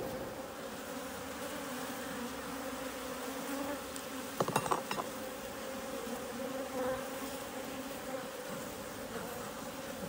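Honeybees buzzing around an opened top-bar hive, a steady hum from many bees at once. A short clatter of light knocks comes about four and a half seconds in.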